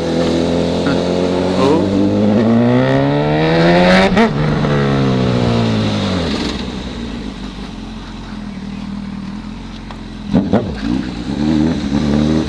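Honda CB1000 motorcycle's inline-four engine on the move. About two seconds in it revs up with a rising pitch, then it falls away as the bike eases off. It runs quieter for a few seconds, then picks up again near the end after a couple of sharp knocks.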